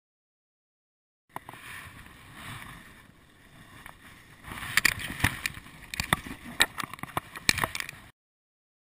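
Close handling noise as a caught brown trout is held in bare hands at the stream bank: a steady hiss, then from about halfway a busy run of sharp rustles, clicks and knocks close to the microphone. It starts a second or so in and cuts off abruptly near the end.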